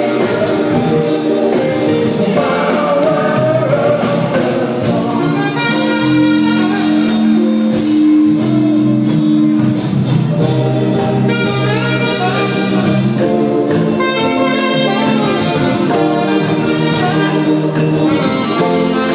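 Live saxophone playing a calypso melody over band accompaniment, with long held, wavering notes.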